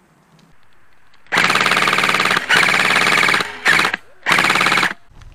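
Tokyo Marui high-cycle AK electric airsoft rifle firing full auto in four bursts of a second or less, the third very short: a fast, even rattle with the gearbox motor humming underneath.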